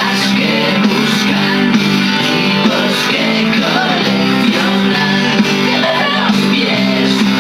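A pop-rock song playing, a stretch with guitar and no clear sung words.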